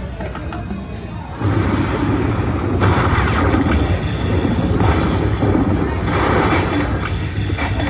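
Chica Bonita Lightning Link slot machine playing its bonus music and sound effects at the end of a hold-and-spin round. About a second and a half in it gets suddenly louder, with deep booms.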